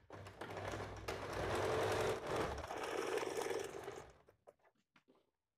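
Electric domestic sewing machine stitching a tuck in thin blouse fabric, running for about four seconds with a brief slowdown about halfway, then stopping, followed by a few faint clicks.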